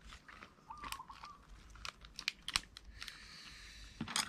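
Dry rice paper crackling and crinkling as it is handled and rolled around food, an irregular string of crisp clicks.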